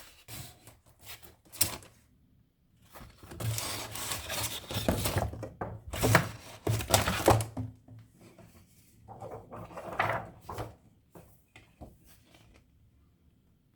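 Cardboard box and packaging being handled during unboxing: irregular knocks, rubbing and scraping, with a longer stretch of scraping and rustling in the middle.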